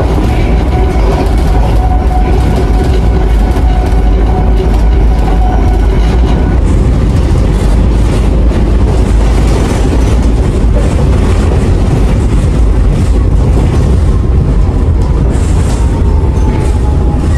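MF88 Paris Métro train running, with a loud steady low rumble and thin whining tones that fade out about six seconds in; a faintly falling whine comes back near the end.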